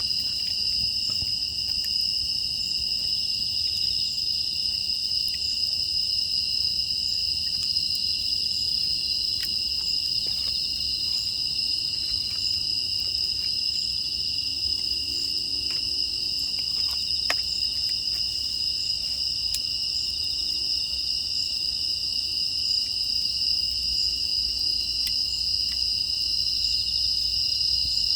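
Steady chorus of crickets chirring in two high, unbroken bands, with faint scattered crackles from a wood fire.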